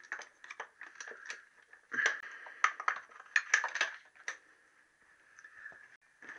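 Irregular light metallic clicks and taps of a hand and tools working fittings at the underside of a motorcycle carburettor, at the fuel banjo union.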